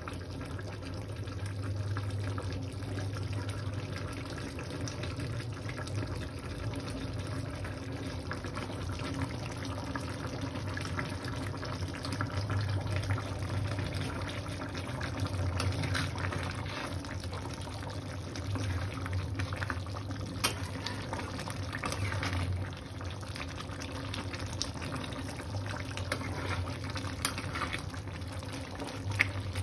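Chicken curry simmering in a metal pan on a gas stove, a steady bubbling hiss with a low hum under it. Just before the end a spatula knocks against the pan.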